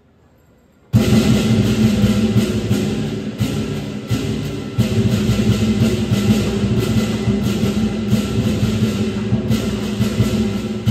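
Lion dance percussion band led by a large drum, starting abruptly about a second in and then playing a loud, steady beat.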